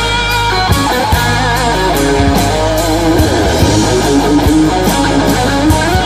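Blues-rock band playing an instrumental passage: an electric guitar lead with bent, wavering notes over a steady drum beat and bass.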